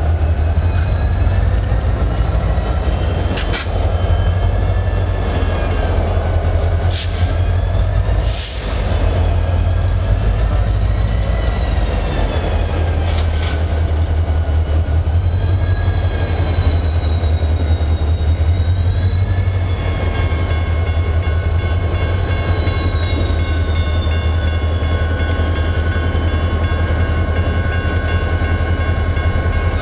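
CN diesel-electric locomotives passing slowly at close range: a deep steady engine rumble under high wavering wheel squeal, with a few sharp metallic clanks in the first half. For the last third the squeal settles into steady high tones.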